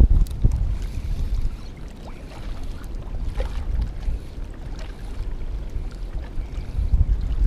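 Wind buffeting the microphone: an uneven, gusty low rumble, with a few light clicks now and then.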